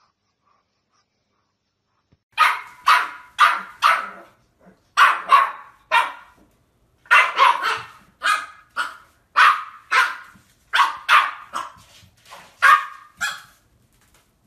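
Young pug barking a run of about twenty short, sharp barks, a couple a second with brief pauses, starting about two seconds in.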